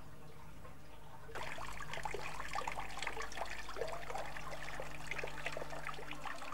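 Water splashing and trickling into the pool of a decorative rock grotto water feature, starting suddenly about a second in. Soft held music tones sound underneath.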